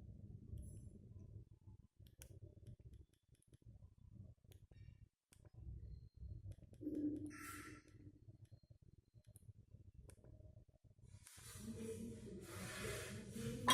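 Faint, scattered clicks of a feature phone's keypad buttons being pressed while scrolling through menus, over a low hum. There is a brief louder sound about seven seconds in, and a hiss builds over the last couple of seconds.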